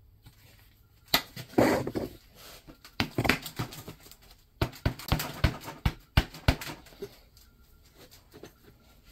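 Hand-fitting the 4L60E's 2-4 servo cover into its bore in the aluminium transmission case: irregular metallic clicks, knocks and scrapes, with a quick run of sharper taps a little past halfway.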